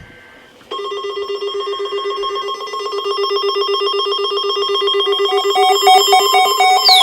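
Electronic alert tone of an emergency broadcast warning: a rapidly pulsing, ringing electronic tone that starts under a second in and grows louder, with a second, higher pulsing tone joining about five seconds in and a falling sweep starting near the end.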